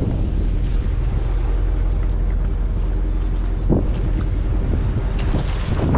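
Steady wind rumble on the microphone aboard a small fishing boat at sea, with a faint low hum underneath and one brief knock about three and a half seconds in.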